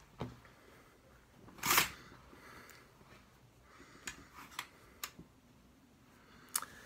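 A few soft, scattered clicks and knocks in a quiet room, with one louder thump about two seconds in.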